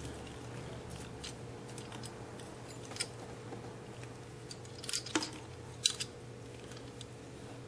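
A few sharp, faint metallic clicks and taps, a cluster of them about five and six seconds in, as the LED modules are moved about on a metal ceiling light fixture. A faint steady hum sits underneath.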